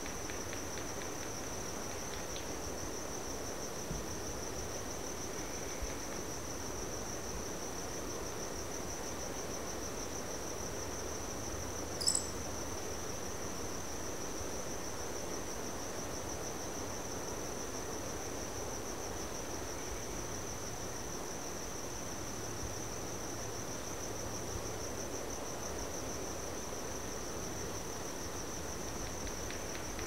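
Crickets trilling in one continuous, even, high-pitched drone. About twelve seconds in, a single brief sharp high click stands out above it.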